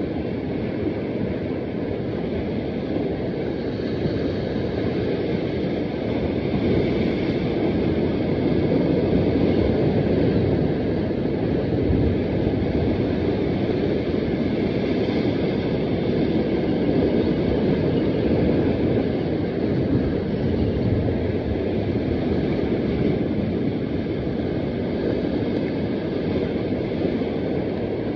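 Steady rush of sea surf washing against rocks, mixed with wind buffeting the microphone; it swells slightly in the middle.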